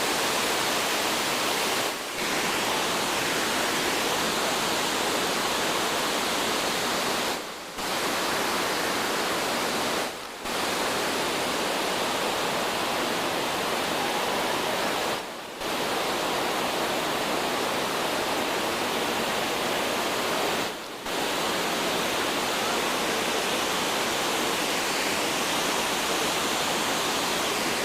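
Steady roar of Fukuroda Falls, a large waterfall running in heavy flow. The roar dips briefly five times.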